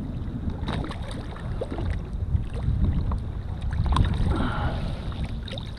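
Wind buffeting the microphone over water sloshing against a kayak hull, with scattered small clicks and knocks.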